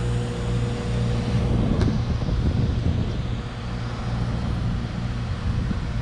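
HVAC equipment running with a steady low hum and rumble, and a single sharp click a little under two seconds in.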